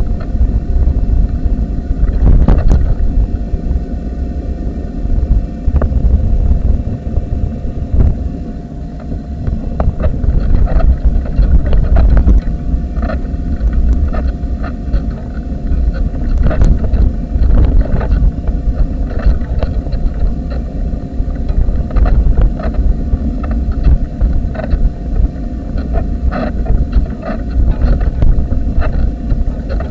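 Low rumble and rattling of a wheelchair rolling over rough tarmac, picked up through a camera mounted on the chair, with wind on the microphone. Frequent small knocks and clicks from the chair's vibration sound over a faint steady hum.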